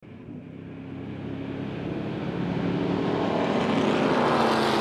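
Race car engines at high revs, growing steadily louder as they approach.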